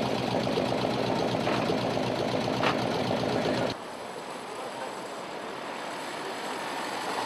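A Chevrolet Corvette Sting Ray's V8 running steadily, heard close to its exhaust, cut off abruptly a little over halfway through. After that comes a quieter car engine, slowly getting louder as a small open sports car approaches at low speed over cobbles.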